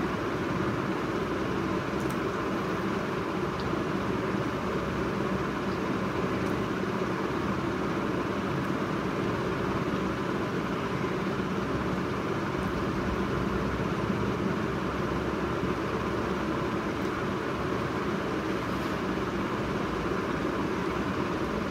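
Steady, unchanging mechanical background noise, a constant whoosh like a running fan or air conditioner, with a few faint ticks.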